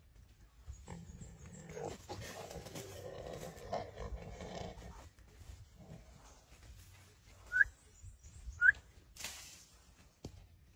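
Wild boar in distress under a Komodo dragon's attack, with a few seconds of rough, low animal noise, then two short, sharp, high-pitched squeals about a second apart, the loudest sounds.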